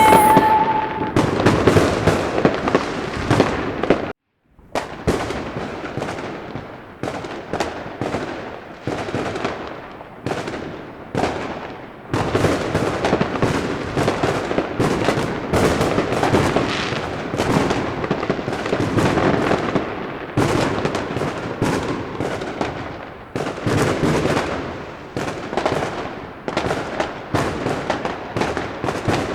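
Fireworks display: a dense, continuous run of bangs and crackles, each with a short echoing tail, with a brief drop to silence about four seconds in.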